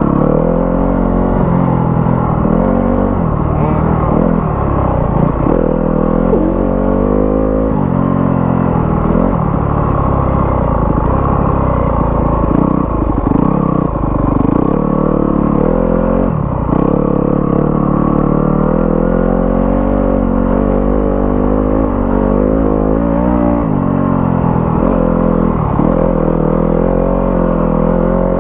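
Yamaha YZ-series off-road motorcycle being ridden, its engine revving up and dropping off again and again as the throttle is opened and closed.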